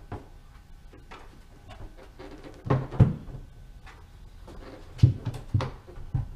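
Knocks and clunks of a Yamaha four-stroke outboard's top cowling being pressed and seated onto the engine: a cluster about three seconds in, and more from about five seconds in.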